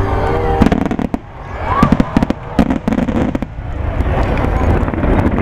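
Aerial fireworks bursting: a quick run of sharp bangs and crackles starting about half a second in and dying away after about three seconds, leaving steady background noise.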